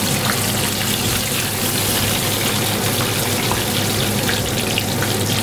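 Frog legs deep-frying in hot oil (about 400°F): a steady sizzle and bubble, with a few faint clicks as a wire skimmer lifts them out.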